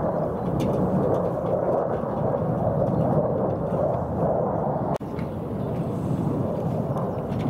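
Military jet aircraft flying overhead: a steady low rumble, with a brief dropout about five seconds in.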